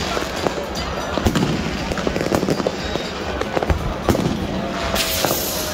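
Fireworks and firecrackers going off: dense, irregular bangs and crackling over crowd voices. A loud hissing burst comes near the end.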